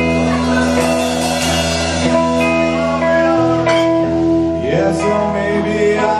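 Background music led by guitar, with sustained notes over a steady bass.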